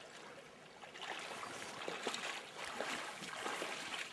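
Shallow river water running over a stony riffle, with light, irregular splashing starting about a second in.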